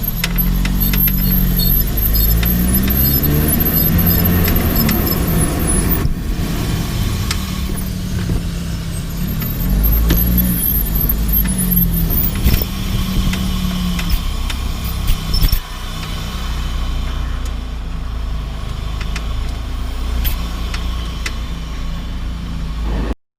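Lotus Elise on the move, heard from the front left suspension: the engine note rising and falling with the revs over road and tyre noise, with scattered sharp clicks from the suspension, the unexplained clicking the owner is trying to diagnose. A louder knock comes about halfway through, and the sound cuts off suddenly just before the end.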